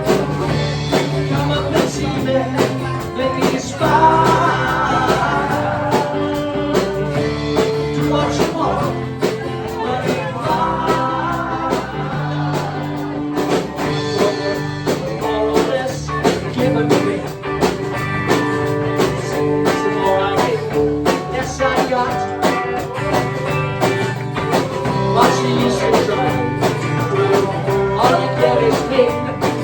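A band plays a rock song with guitar over a steady beat, in an instrumental passage without sung words.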